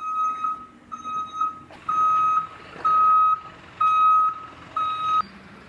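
Vehicle reversing alarm beeping: six even beeps on one steady pitch, about one a second, stopping a little after five seconds.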